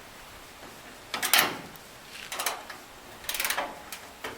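Three short bursts of rattling clicks and clatter from the washing machine being handled as it is set to test the new fill valve, the first about a second in and the loudest. No water can be heard running.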